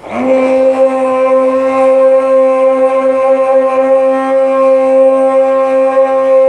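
Hand-held immersion blender switched on, its motor spinning up in a moment and then running at a steady whine as it blends a thick chocolate milkshake.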